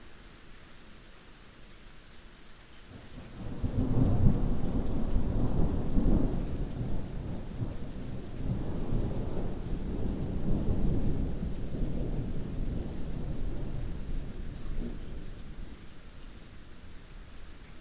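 Steady rain with a long roll of thunder: a low rumble comes in about three seconds in, swells several times, then slowly fades away near the end.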